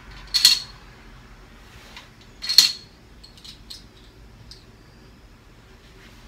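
Plastic Connect 4 checkers dropped into the upright grid: two short clattering rattles about two seconds apart, each a disc falling down a column and landing, followed by a few light plastic clicks.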